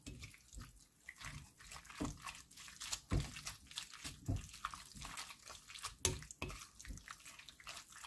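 Wooden spoon stirring aged kimchi and gochujang-marinated pork in a glass bowl: irregular wet squelching with light knocks.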